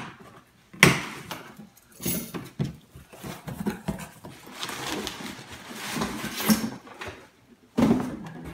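Cardboard shipping box being opened by hand. Flaps are pulled back with sharp cardboard cracks about one and two seconds in, followed by rustling and scraping of cardboard as the shoebox is drawn out, and a louder scuff near the end.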